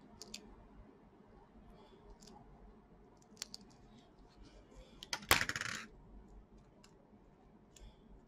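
A small metal knife clatters down onto the hard tabletop about five seconds in, with a brief metallic ring. Before that come faint scratches and clicks of the tool picking at a laptop's rubber foot strip.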